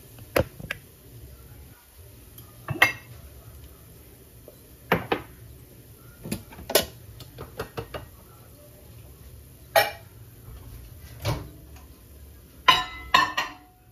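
Dishes and metal utensils clinking and clattering in a kitchen: scattered sharp knocks, with a quick run of clatter near the end, over a low steady hum.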